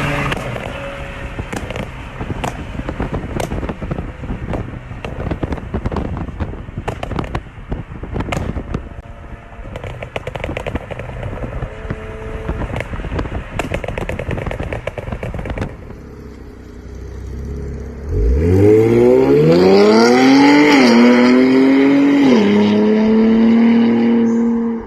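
Infiniti Q60S exhaust crackling and popping on a crackle map, an irregular run of sharp pops over the engine's rumble. After a short lull the engine pulls hard under full throttle, its pitch climbing through two upshifts.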